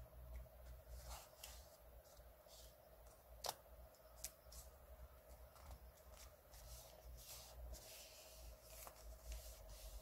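Quiet, soft rustling and tapping of a torn piece of paper being handled and pressed flat onto a notebook page by hand, with one sharp click about three and a half seconds in, over a faint steady hum.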